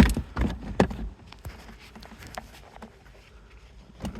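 Used-car shifter assembly being worked loose and lifted out of a 2015 Jeep Cherokee's console: three sharp knocks in the first second, then light scattered clicks and handling noise.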